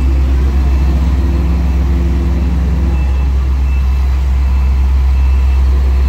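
Heavy diesel engines of an asphalt paver and a dump truck running steadily at a road-paving site: a loud, deep, constant drone, with a steady engine tone over it for about the first half. A short high beep sounds a few times in the second half.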